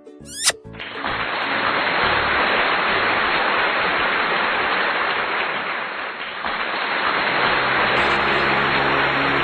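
A quick rising whoosh, then a loud, steady sizzling hiss over the hot pan of baked tilapia. Music comes in faintly near the end.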